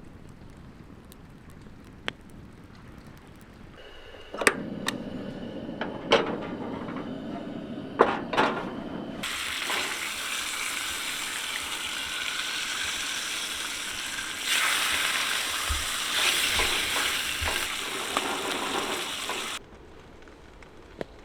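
Bacon sizzling in a frying pan, with a few sharp clinks and scrapes of a utensil in the pan about four to eight seconds in. About nine seconds in the sizzle grows loud and steady, and near the end it cuts off suddenly.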